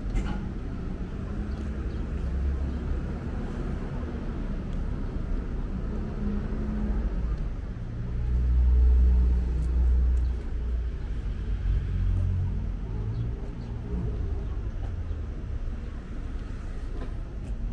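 A motor vehicle's engine running with a low, steady rumble, swelling louder from about eight to ten seconds in, then easing back.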